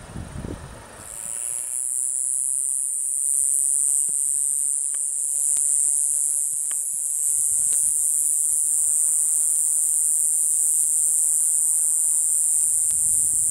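Steady, high-pitched chorus of night insects shrilling without a break, with a few faint clicks. A low rumble cuts off about a second in.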